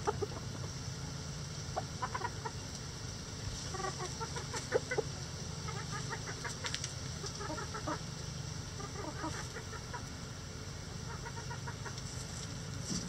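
A flock of chickens clucking, with short clucks coming in scattered clusters, the loudest about five seconds in, over a steady low background hum.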